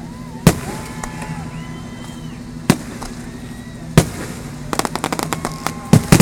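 Fireworks going off: single sharp bangs a second or two apart, then a quick run of crackling pops about five seconds in, and two loud bangs close together near the end.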